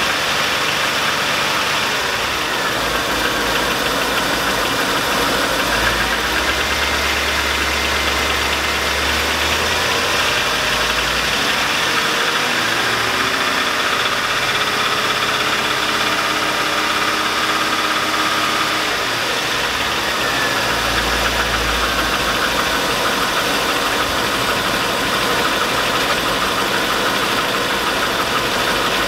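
Chevrolet 5.3L Vortec V8 idling steadily with a knock from the bottom end. The owner takes the knock for a rod knock, though he says it could be lifters.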